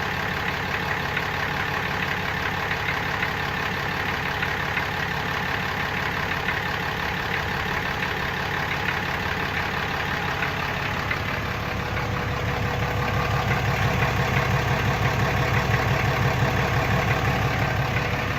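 6.7 L Cummins inline-six turbo-diesel in a 2018 Ram pickup idling with an odd rattle on a brand-new truck. Its low rumble grows louder and more pulsing about twelve seconds in.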